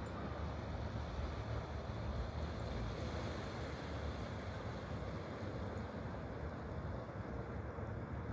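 Steady rushing of flowing water, an even wash of sound heavy in the low end, with no change in level.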